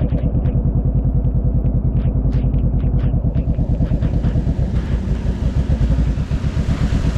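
A vehicle engine running steadily on a ride through rain, with sharp ticks of raindrops hitting close by. A hiss of spray builds up in the second half.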